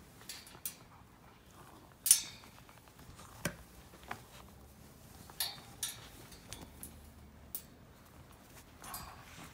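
Beagle puppy tugging a towel: scattered short clinks and knocks with soft rustling, the loudest a single sharp knock about two seconds in.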